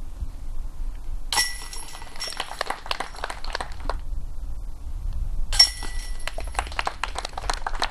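Disc golf putts hitting the chains of a metal basket, twice: a sharp clank with a ringing tone about a second and a half in, and another a little over five seconds in. Each is followed by about two seconds of jingling chains.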